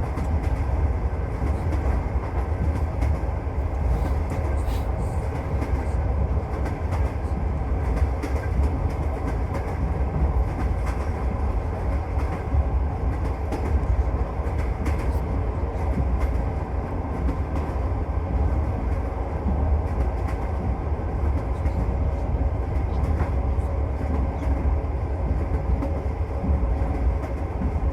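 Passenger train running on the rails, heard from inside the carriage: a steady low rumble with scattered clicks of the wheels over the track.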